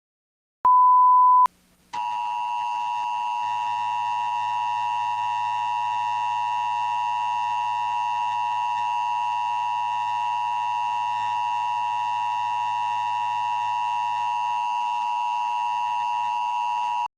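A short single-pitch beep, then the Emergency Alert System attention signal: a steady two-note electronic tone held for about fifteen seconds that cuts off abruptly, announcing an emergency broadcast.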